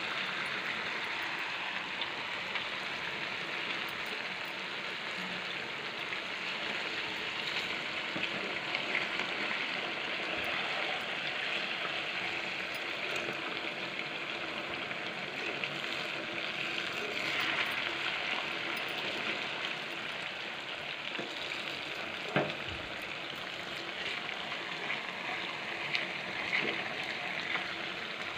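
Moong dal chandrakanti fritters deep-frying in a kadai of hot oil, a steady bubbling sizzle. One sharp tap sounds a little past two-thirds of the way through.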